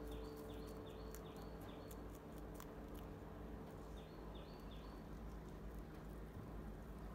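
Rabbits chewing leafy greens: faint, crisp nibbling clicks, most of them in the first few seconds. A rhythmic high chirping, about three a second, comes in short runs at the start and again about four seconds in.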